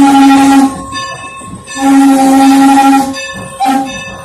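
Norfolk & Western No. 475 steam locomotive's whistle blowing three blasts: a first blast, a longer one about a second later, and a short toot near the end. A bell rings steadily underneath, heard between the blasts.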